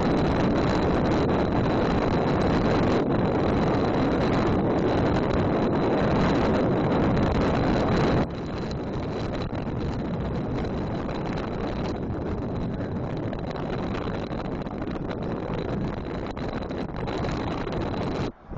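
Rushing wind buffeting the microphone of a camera on a bicycle speeding down a steep grade, a dense steady noise that eases to a lower level about eight seconds in.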